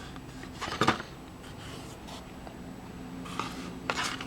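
Printed paper cards being handled, with a few short rustles and taps around a second in and again near the end, over a faint steady low hum.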